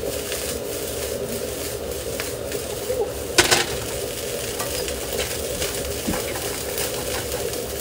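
Fried rice sizzling in a nonstick wok as it is stirred and turned with a wooden spatula, with a few light clicks and one sharp knock about three and a half seconds in.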